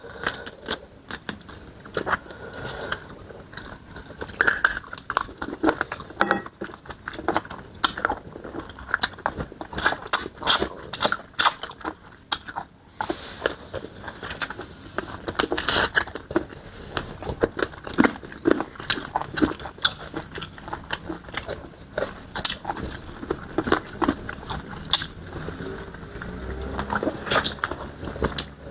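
Close-up eating sounds: chewing and biting smoked chicken with starch fufu and banga soup, a dense run of short crunches and mouth clicks throughout.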